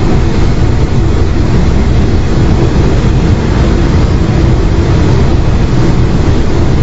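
MetroRail Class 10M5 electric multiple unit running on the rails as it approaches and draws level, a loud, steady, mostly low noise of wheels and running gear.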